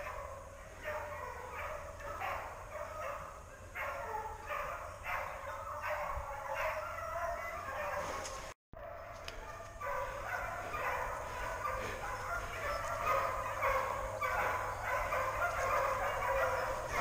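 A pack of hunting hounds in full cry, many overlapping bays and yelps running on without a break as they chase wild boar. The sound cuts out for a moment about halfway through.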